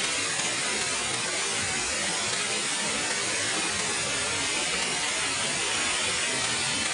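Waterfall pouring: a steady, even rush of falling water with no change throughout.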